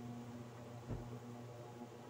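Induction cooker running with a steady low electrical hum under a simmering pot, with one soft thump about a second in.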